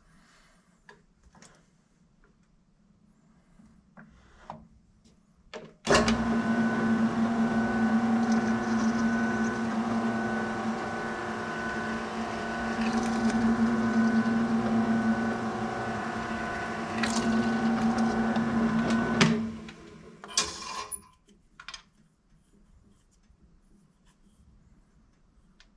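A small electric power tool's motor runs steadily for about thirteen seconds, starting and stopping abruptly, with its level rising and dipping slightly as it works. Light handling clicks and knocks come before and after it.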